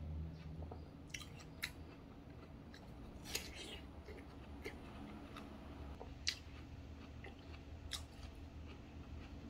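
Faint mouth sounds of a person chewing watermelon, with a few short crisp clicks scattered through, over a low steady hum.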